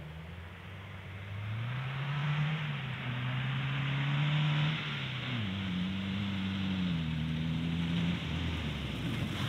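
Compact pickup truck's engine pulling hard as the truck drives up a grassy field toward the microphone: the revs climb, drop sharply about five seconds in at a gear change, climb again, then ease off near the end.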